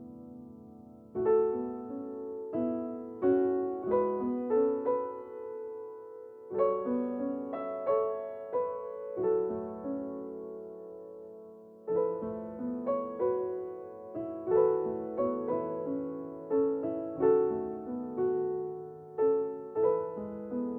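Background music: a slow, gentle piano melody, notes struck roughly two a second in phrases that swell and fade.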